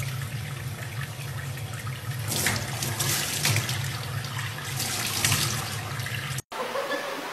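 Tap water running in a steady stream into a stainless steel sink, with splashing as a young chimpanzee puts its hands into the stream. The sound cuts off suddenly near the end.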